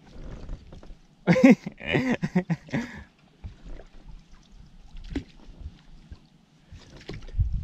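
A woman's wordless vocal sound, a short run of pitched calls lasting about a second and a half, beginning about a second in. A single sharp click comes about five seconds in and a low thump near the end.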